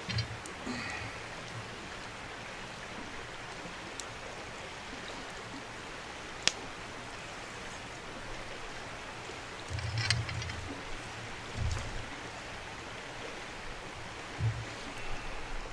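Steady rush of flowing river water, with a few pops from the wood campfire, the sharpest about six and a half seconds in. Low knocks and light clinks come and go as a small steel pot is shifted on the grill grate.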